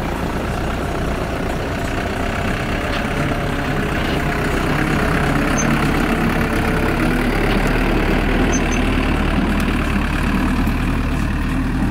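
Flatbed recovery truck's engine running at idle, a steady low hum that grows stronger about halfway through.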